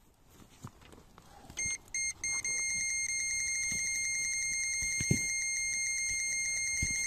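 Electronic bite alarm on a pike rod sounding a run: three quick beeps, then a continuous high tone from about two and a half seconds in as a fish takes line fast. A couple of low thuds near the end.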